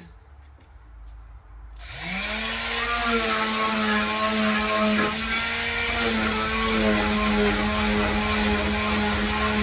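Electric sander with a 150-grit pad switched on about two seconds in, its motor spinning up with a rising whine, then running at a steady pitch while sanding a wooden box.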